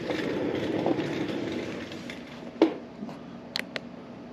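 A power wrench running in a rough, steady rattle for about two seconds as the wheel's lug nuts are spun off, then a sharp metallic clink and a few lighter clinks.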